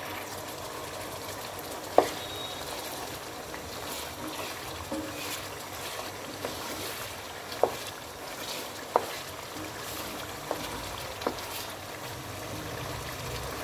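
Chicken curry bubbling and sizzling in a pot as it is fried in its masala, with a spoon knocking sharply against the pot several times while stirring. The loudest knock comes about two seconds in.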